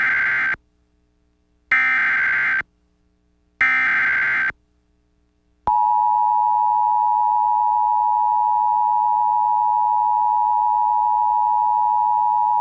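Emergency Alert System alert over radio: the SAME header's shrill digital data bursts, the end of one and then two more about two seconds apart, followed about six seconds in by the steady two-tone attention signal (853 and 960 Hz). It signals an EAS alert, here a Flash Flood Warning, about to be read.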